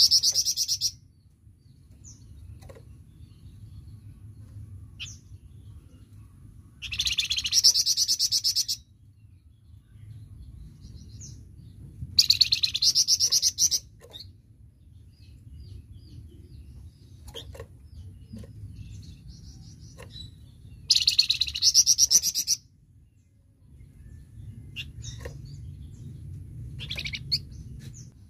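Flamboyan bird singing in loud 'tembakan' bursts: fast, rattling runs of very rapid high notes, each about two seconds long, coming four times, with soft single chirps in between. A low, steady rumble runs underneath.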